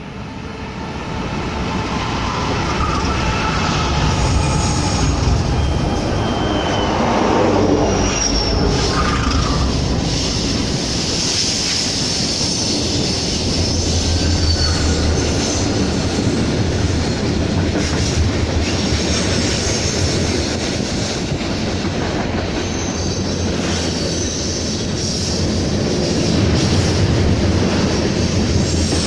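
BNSF freight train led by EMD SD40-2 diesel locomotives (16-cylinder two-stroke engines) passing close by, growing louder over the first couple of seconds. A steady low diesel drone sits under the rumble of the cars, with high wheel squeals coming and going.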